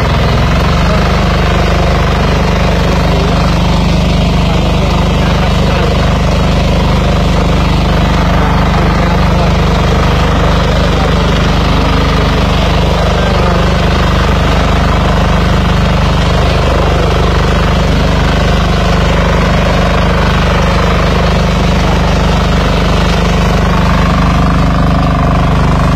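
BCS two-wheel walk-behind tractor running steadily under load, its engine and reciprocating cutter bar mowing through tall grass.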